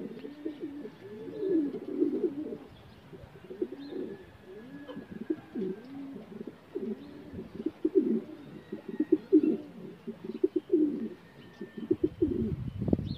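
Domestic pigeons cooing, many overlapping coos repeating one after another. A low rumble comes in near the end.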